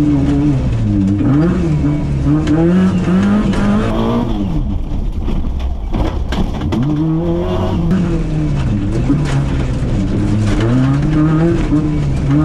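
Engine of a tuned Suzuki Jimny Wide (JB33), heard from inside the cabin, revving up and down over and over under hard throttle as the car is driven on snow. The pitch drops sharply about four seconds in, then climbs again.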